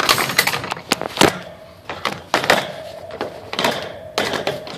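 A sudden burst of rattling and knocking handling noise, with sharp clicks scattered throughout and a thin steady whine from about halfway through.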